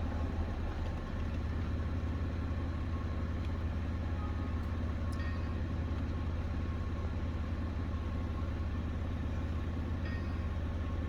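A steady low mechanical hum, unchanging throughout, with a few faint light ticks.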